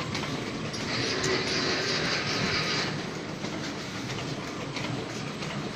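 Roll-to-sheet paper cutting machine running with a steady mechanical clatter, with a hiss about one to three seconds in.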